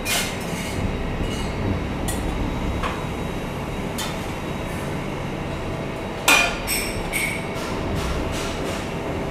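Metal clinking and knocking as stainless exhaust pipe sections are handled, a few separate knocks with the loudest about six seconds in, over a steady low workshop hum.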